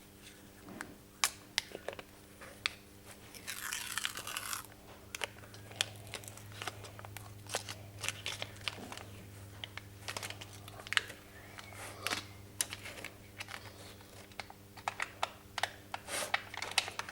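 Tape being peeled off a drilled clear perspex plate: repeated crackling and small ticks as it pulls away from the plate and its holes, with one longer ripping tear about four seconds in.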